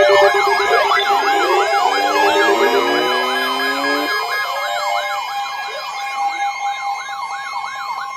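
Several weather alert radios sounding their alarms together: warbling, siren-like alert tones over the steady NOAA Weather Radio warning tone, loudest at the start and thinning out by about halfway. The alarm signals an incoming flash flood warning.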